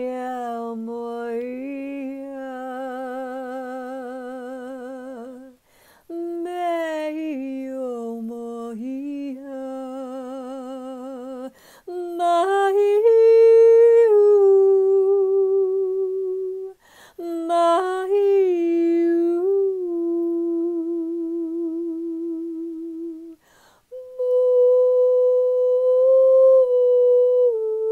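A woman's unaccompanied wordless vocal toning: long held notes with a wavering vibrato, in five phrases separated by short breaths. Each phrase opens with a slide in pitch, and the notes climb higher from phrase to phrase.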